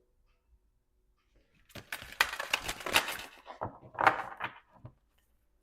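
A deck of oracle cards being shuffled by hand: a run of fast papery flicks and slaps starting a little under two seconds in, then a second, shorter burst, as cards spill out of the deck.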